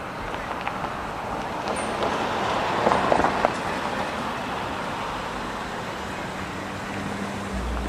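A car driving past on a downtown street, loudest about three seconds in, over steady traffic noise with a low hum.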